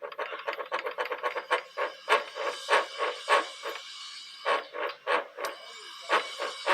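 A worn gearbox shaft bearing in a small motorcycle engine, turned by hand with the clutch removed, growling with a dry, rough rasp in short irregular strokes, several a second, quieter for a moment a little past the middle. The roughness is the sign of a failed bearing that has to be replaced.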